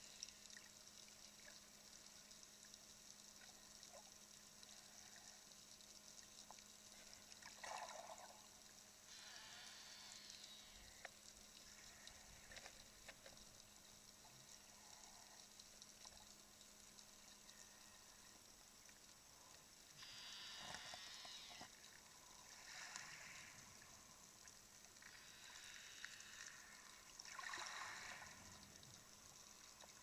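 Near silence from a camera held underwater: a faint steady hum with a few soft swishes of moving water, each lasting a second or two.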